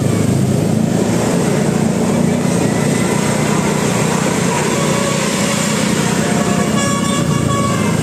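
Motorcycle engines running and road traffic, and from about five seconds in a bus's telolet horn plays a short run of musical notes, the last held for about a second near the end.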